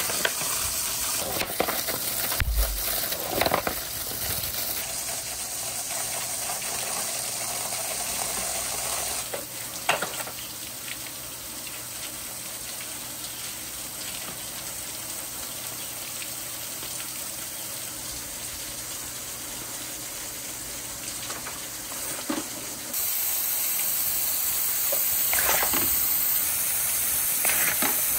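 Water streaming down plastic rain-gutter channels with a steady rushing hiss, broken by a few sharp knocks of wooden balls striking the gutters as they ride the flow. The water gets louder about 23 seconds in.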